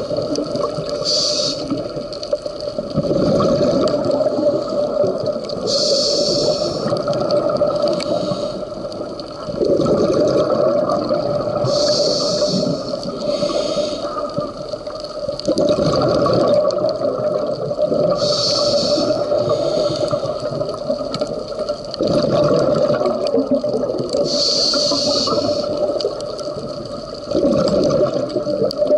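Scuba diver breathing through a regulator underwater: a short high hiss of inhalation about every six seconds, each followed by a couple of seconds of bubbling exhaust bubbles.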